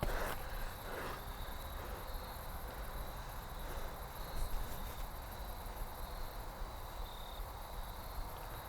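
Faint outdoor ambience: a steady low rumble and hiss, with a thin, high, steady trill of insects.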